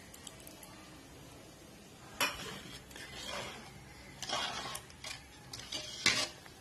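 A steel ladle stirring thick lentil sambar in a metal pot, scraping and clinking against the pot. It comes in a handful of separate strokes starting about two seconds in.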